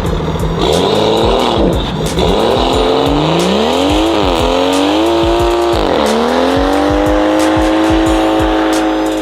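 Modified car engine revving hard, its pitch climbing and falling several times, then held high for about three seconds before dropping near the end, with a music beat underneath.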